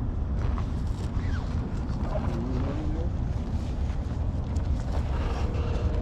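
Steady low rumble of an idling truck engine, with wind on the microphone.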